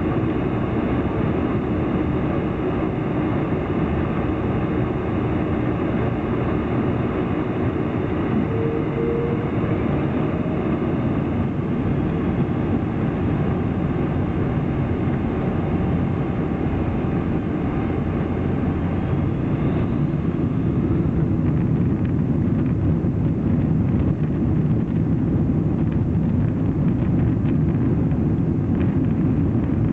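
A Boeing 747's four jet engines at take-off thrust, heard from inside the cabin during the take-off roll: a steady loud rumble with engine tones running through it. Over the last ten seconds the rumble grows rougher, with light rattles and knocks.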